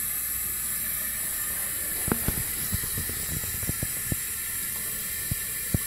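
Steady background hiss with a run of soft clicks and taps about two seconds in, and two more near the end.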